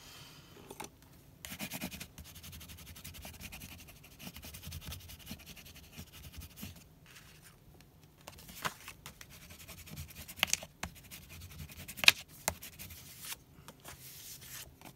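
Card stock being handled and shuffled on the table, with a bone folder rubbing and scraping across the card. A few sharp taps fall in the second half.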